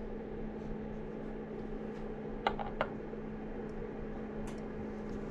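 Small clicks of a dip pen's metal nib tapping against a glass ink bottle, two or three close together about halfway through, over a steady low hum.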